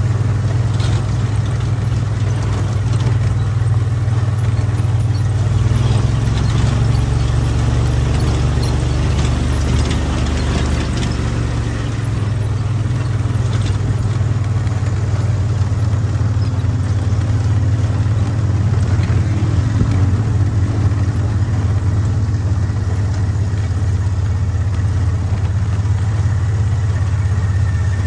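Off-road vehicle engine running steadily at low speed, a constant low drone, with its pitch rising and falling a little a couple of times.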